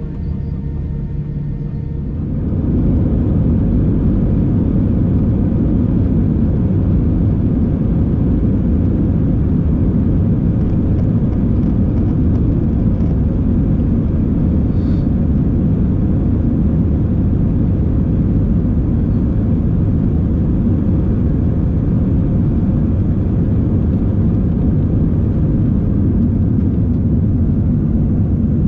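Airbus A319 cabin noise: the engines' steady whine jumps, about two and a half seconds in, to a loud, even rumble that holds throughout, as the engines go to take-off power for the take-off roll and climb.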